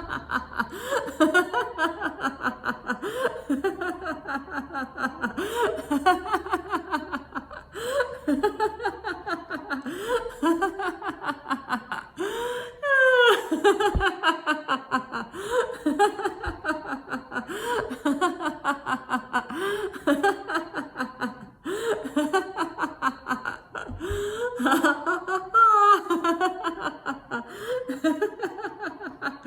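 A woman laughing out loud in long runs of short, rhythmic 'ha-ha-ha' pulses, broken twice by quick rising gasps: deliberate laughter-yoga laughter rather than laughter at a joke.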